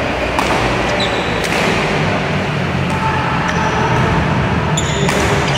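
Badminton doubles rally: sharp racket hits on the shuttlecock about half a second in, around a second and a half in, and a louder one near the end, with short squeaks of shoes on the court floor. A loud steady rushing noise runs underneath throughout.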